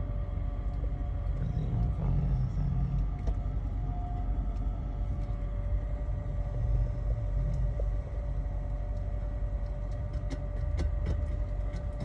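Car engine idling at a standstill, a steady low rumble heard from inside the cabin of a 1977 Chevrolet Caprice, with a few faint ticks near the end.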